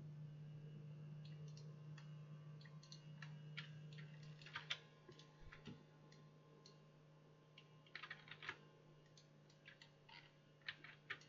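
Faint typing on a computer keyboard: irregular clusters of clicks over a steady low hum.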